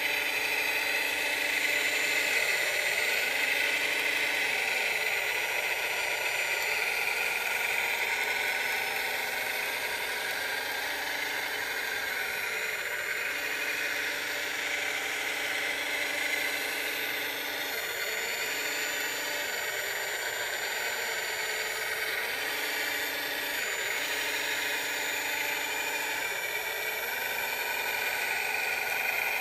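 Radio-controlled model wheel loader running: a steady electric whir from its motors, with a lower tone that cuts in and out and shifts pitch every few seconds as it drives and works.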